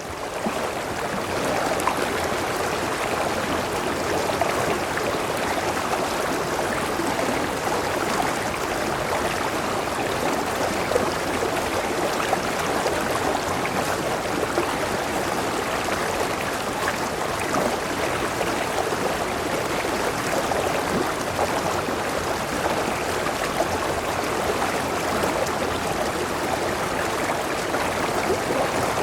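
Stream of water running and babbling steadily.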